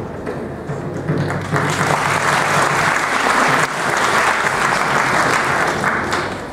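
Audience applauding, starting about one and a half seconds in and dying away near the end.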